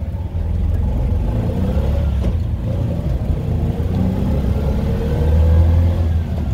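Auto-rickshaw engine running as the three-wheeler drives along, with heavy low road rumble. The engine note climbs twice as it picks up speed, a little after two seconds in and again toward the end, where it is loudest.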